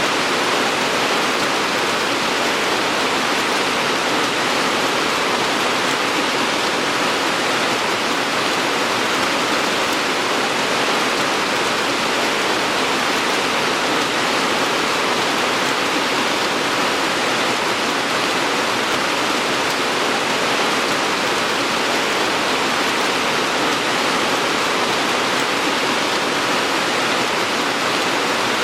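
Heavy rain falling steadily, a dense even hiss without any break.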